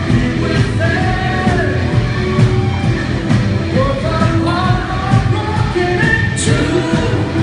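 A man singing into a microphone over loud instrumental accompaniment with a steady beat, a sung melody gliding up and down throughout.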